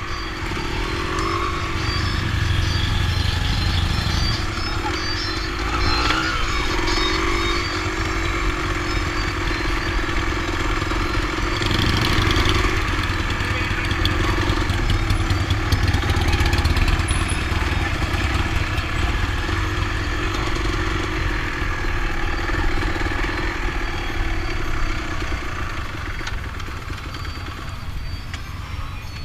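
Dirt-bike motorcycle engine running steadily at a low cruising pace, heard from on the bike, its pitch wavering slightly with small throttle changes, under a steady low rumble of wind noise.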